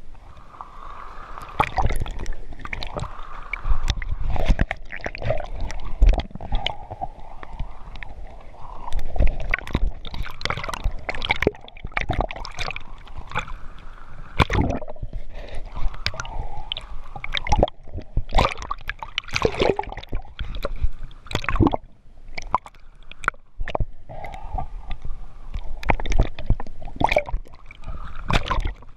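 Seawater sloshing, gurgling and splashing against a small camera held at and just under the surface, with many irregular sharp splashes.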